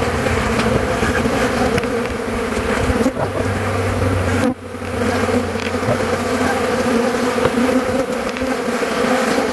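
Honeybees buzzing in flight around an opened hive, a steady hum that dips briefly about halfway: the colony is stirred up while its frames are being handled and moved to a new box.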